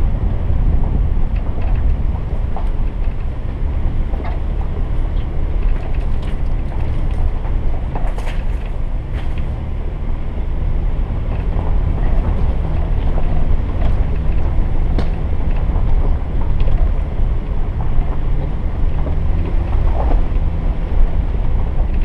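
Jeep driving on a dirt and gravel trail: a steady low engine and road rumble with scattered clicks and knocks from the tyres over stones.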